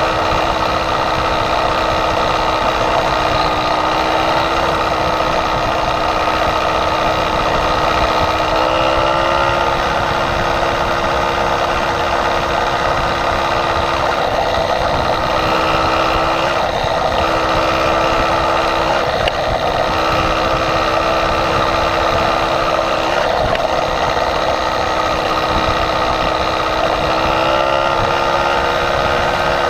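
Motorized bicycle's small engine running steadily at cruising speed, its pitch dipping and recovering slightly a few times.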